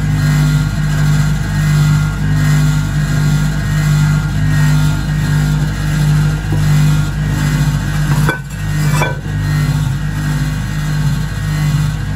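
Hotpoint 1012 spin dryer running at speed with a load of wet washing, its motor giving a steady hum that swells and fades slightly every second or two as the water is spun out. Two brief knocks come about eight and nine seconds in.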